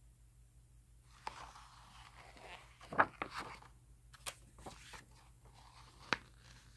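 Pages of a large glossy art book being turned by hand: paper rustling and crackling from about a second in, with a few sharp snaps, the loudest about three seconds in.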